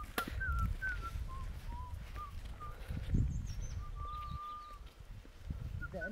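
A series of short, thin whistled notes at irregular intervals, one held for about a second, over a loud, uneven low rumble.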